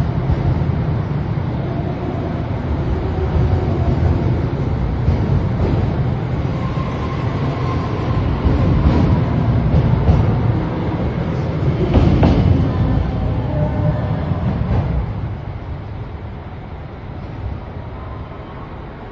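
A train running along a station platform: a loud low rumble with a few sharp clicks of wheels over rail joints. It fades from about fifteen seconds in as the train moves away.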